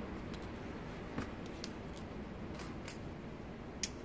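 Quiet steady outdoor background with a few faint, sharp clicks spread through, the loudest near the end.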